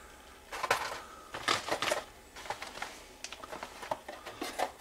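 Plastic bags and packs of fishing hooks rustling and crinkling as they are sorted through by hand, with scattered light clicks in short irregular bursts.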